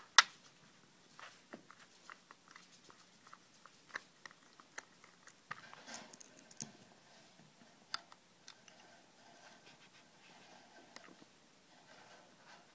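Small screwdriver working screws out of a plastic J1772 charging-plug housing: scattered light clicks and scrapes of the tip in the screw heads and the plastic. Two sharper clicks come right at the start.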